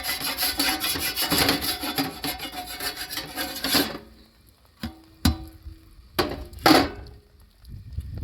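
Rapid rasping or rubbing strokes for about four seconds, stopping abruptly, followed by a few sharp knocks with a short ring.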